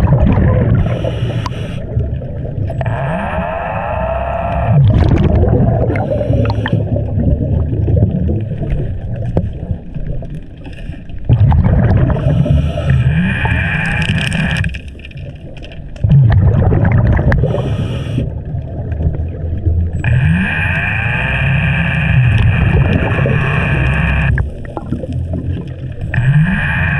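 Scuba regulator breathing heard underwater: bursts of exhaled bubbles rumbling and gurgling, alternating with the hissing draw of the regulator on each inhale, about one breath every five seconds.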